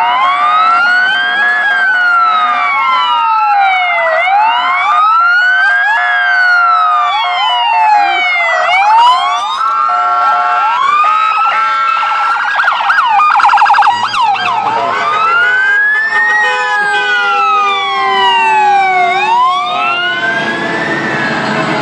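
Sirens of passing police and fire vehicles: a slow wail rising and falling about every four to five seconds, overlapped by other sirens, with a faster warble near the middle. A low steady drone joins about two-thirds of the way through.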